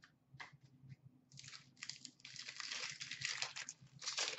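A hockey trading-card pack's wrapper being torn open and crinkled, starting about a second and a half in and running to the end, after a few light taps of cards being handled.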